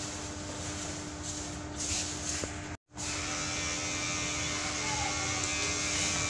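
Electric hair clippers running with a steady buzz, cutting out for a moment about three seconds in.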